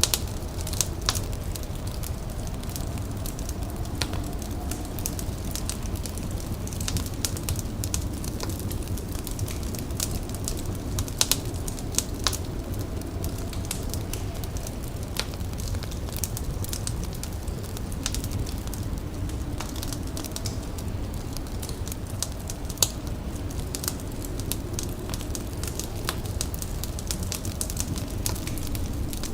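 Indoor fire crackling, with frequent irregular sharp pops and snaps over a steady low rumble.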